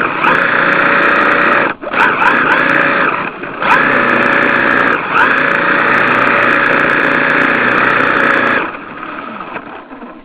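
RC drift car running hard, its motor held at high revs with short rising blips of pitch. The sound dips briefly about two, three and a half and five seconds in. It falls away near the end.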